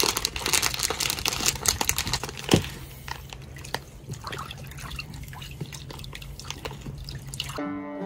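Brown sugar pouring from a crinkling plastic bag into a tray of salt-water brine, then a hand stirring and swishing in the brine with small drips and splashes. Guitar music comes in near the end.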